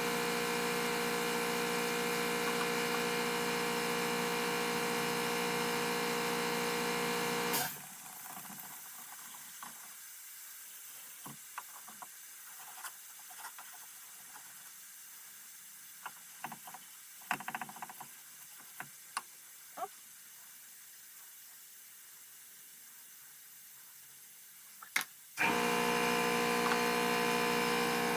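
A steady electrical hum with several fixed tones stops abruptly about a third of the way in. What follows is a quiet stretch with scattered small clicks and taps, like light handling of metal parts. The hum starts again abruptly near the end.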